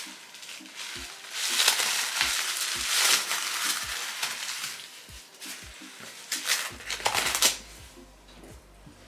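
Plastic and paper wig packaging crinkling and rustling as it is handled and opened, in several bursts, the loudest about a second and a half in and again near the end.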